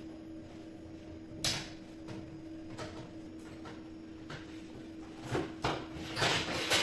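Handling noises from wiring a breaker panel: a sharp click about a second and a half in, then scattered small clicks and the rustle of stiff insulated wire being pushed into the breaker terminals, busier near the end. A screwdriver works on the terminal screws. A faint steady hum runs underneath.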